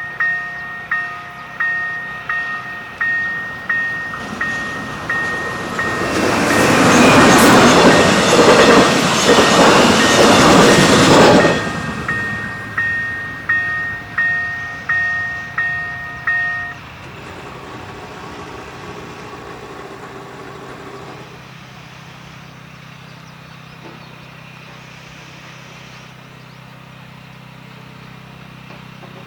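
Railroad crossing warning bell dinging evenly, about once every 0.7 seconds, while a train runs through the crossing about six seconds in, a loud rushing passage lasting about five seconds. The bell stops a little past the middle as the crossing clears, leaving a steady low hum.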